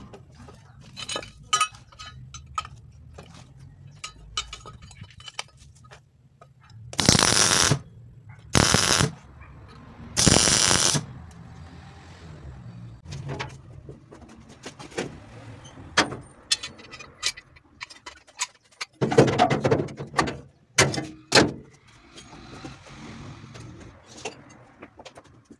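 MIG welder tack-welding a small steel plate: three short bursts of arc crackle, each under a second, about seven, eight and a half and ten seconds in, with clicks and scrapes of the torch and pliers around them. Another loud noisy burst comes about two-thirds of the way through.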